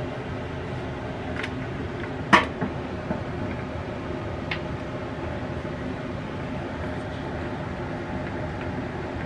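Cosori air fryer oven running with a steady fan hum. Over it come a few light clicks and knocks as a plastic jar and measuring spoon are handled, the sharpest about two and a half seconds in.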